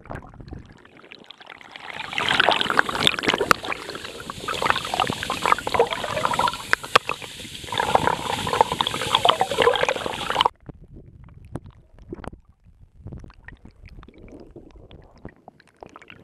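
Underwater sound of river water rushing and bubbling past a camera held below the surface, full of crackling clicks, as a canoe paddle strokes through the water nearby. The loud churning cuts off suddenly about ten seconds in, leaving a fainter crackle.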